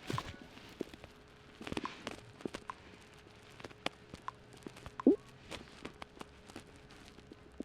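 Scattered light clicks and taps over a faint steady hum, with one louder short sound about five seconds in.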